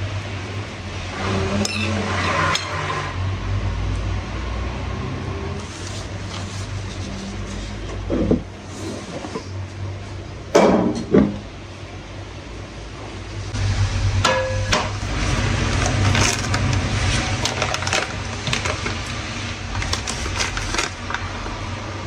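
Kitchen handling sounds over a steady low hum: dishes and a chair being moved as a table is cleared, with scattered knocks and clatters, the loudest about halfway through, then a packet being snipped open with scissors.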